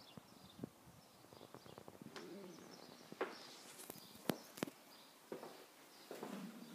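Small garden birds chirping faintly and high throughout, with a low cooing call about two seconds in. Footsteps and soft knocks run through it, and a pair of sharp clicks about four seconds in, the loudest sounds, come as someone steps in through a glazed door.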